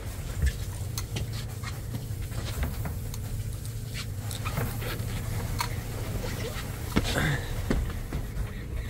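Wind rumbling on the microphone on an open boat, with scattered light clicks from fishing reels and casting gear as poppers are retrieved and cast.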